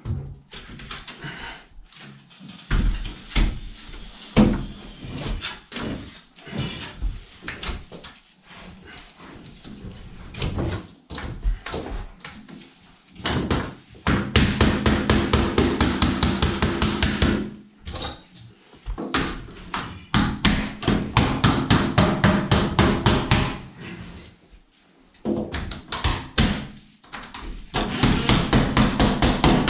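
Knocks and bouts of rapid, regular tapping, several strokes a second, from work on a uPVC window frame, with quieter stretches between the bouts.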